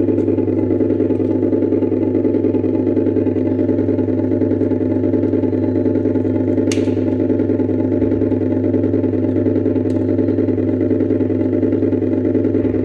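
Motorbike engine sound effect played loudly through a coin-operated kiddie ride's speaker: a steady, unchanging engine drone, with a couple of faint clicks.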